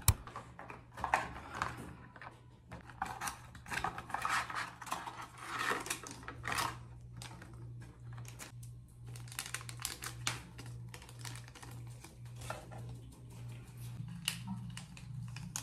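Hands handling a pregnancy-test cardboard box and opening the test's paper wrapper: a run of crinkles, taps and small clicks, busiest in the first half and sparser later. A steady low hum runs underneath.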